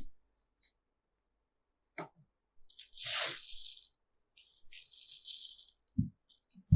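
Packaging being handled while unboxing a speaker system: two long spells of crinkling and rustling, a click about two seconds in, and two short thumps near the end.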